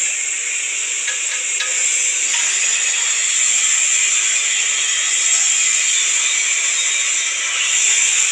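Electric arc welding on a vertical (3G) joint: a steady arc hiss with light crackle, and a few sharper crackles in the first two seconds.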